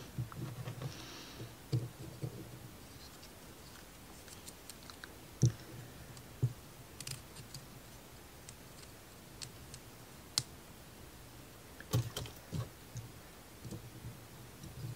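Scattered light clicks and taps of small laser-cut plywood model-kit parts being handled and fitted together, with a sharper knock about five and a half seconds in and a quick cluster of clicks around twelve seconds.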